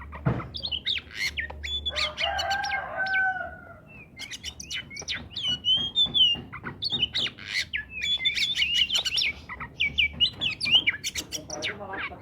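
Oriental magpie-robin singing vigorously: a fast, varied run of whistles, chirps and sharp clicks, with a lower drawn-out call about two seconds in.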